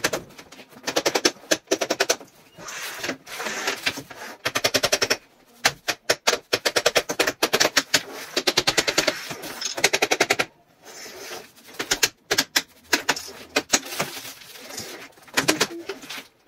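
Mallet tapping rapidly on the connector joints of a DIY cube shoe rack's panels, knocking the pieces together in quick runs of taps with short pauses between them.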